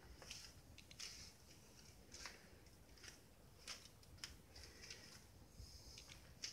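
Near silence: faint room tone with light, irregular clicks about once a second.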